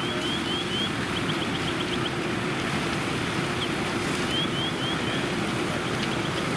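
Fire apparatus engine running steadily, a constant hum under a wide rushing noise of fire and hose streams, with quick runs of short, high chirps.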